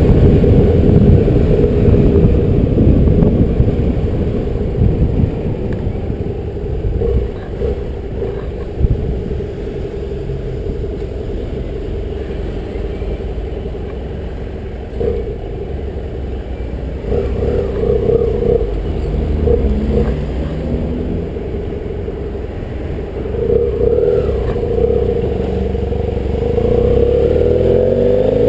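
BMW F800GS motorcycle's parallel-twin engine running under way, heard from the rider's helmet. It is quieter through the middle as the bike slows through a junction, then louder near the end, where the engine note rises as it accelerates.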